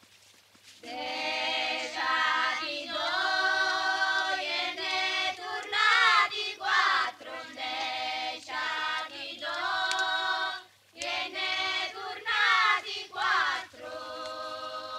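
Several voices singing a slow melody in long held notes that waver in pitch. The singing starts about a second in and breaks off briefly about eleven seconds in.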